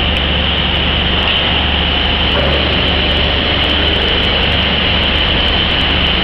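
Factory machinery running steadily: a constant low hum under an even hiss.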